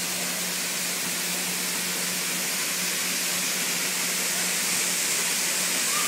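Small waterfall pouring into a pool: a steady rushing hiss, growing slightly louder near the end, with a faint steady low hum beneath it.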